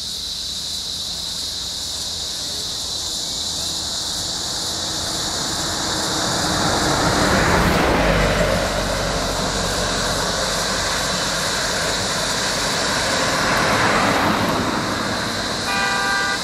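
Road vehicles driving slowly past close by, their engine and tyre noise swelling twice, about eight and fourteen seconds in, over a steady high insect drone. A short pitched beep near the end.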